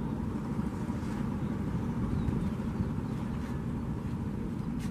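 Steady low rumble of boat engines over the river, even and unbroken.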